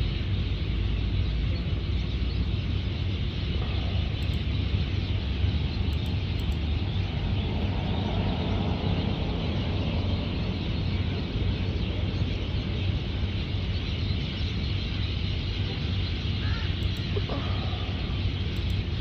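Steady background noise: a low hum under an even hiss, with a short bird call about three quarters of the way through.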